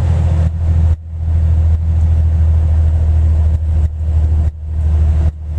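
Car engine and road noise heard inside a moving car's cabin: a steady low drone that dips briefly several times and picks up again each time.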